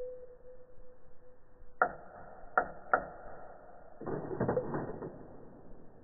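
Slow-motion sound of water drops striking a dish of water: three sharp clicks about two seconds in, then a short rattle of smaller clicks. A faint steady tone comes before them.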